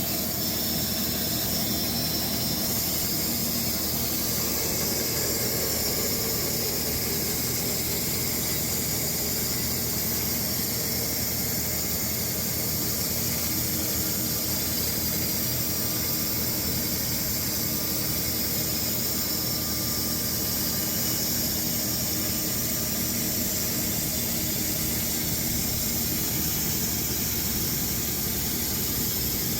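Sawmill running steadily while making the first cuts through a Bastogne walnut log, a constant engine tone under a high, even hiss.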